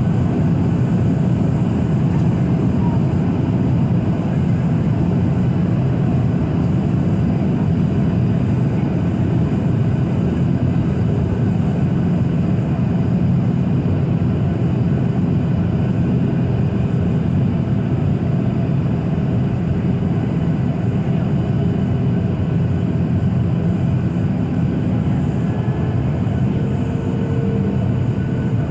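Steady in-flight cabin noise of a Boeing 737-800 heard from a window seat over the wing: an even, low rush of airflow and CFM56-7B engine noise. A faint higher hum joins near the end.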